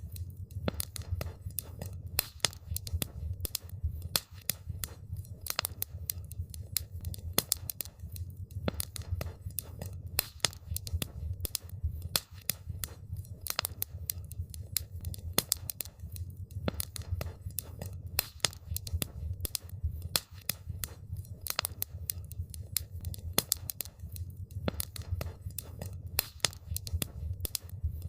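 Wood campfire crackling, with constant irregular sharp pops and snaps over a steady low rumble.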